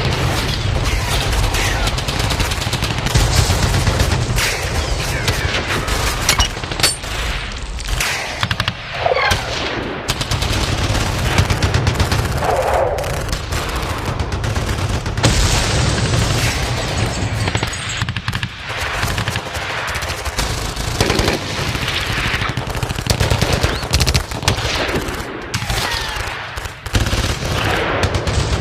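Battle sound effect: dense, continuous machine-gun and rifle fire, many shots overlapping in a sustained fusillade with only brief lulls.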